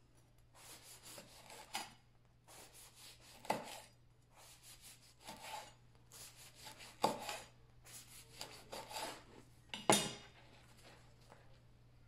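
A chef's knife sawing through the crisp crust of a homemade loaf, slice after slice, each slice a run of rasping strokes. Several slices end in a sharp knock as the blade meets the wooden cutting board, the loudest one about ten seconds in.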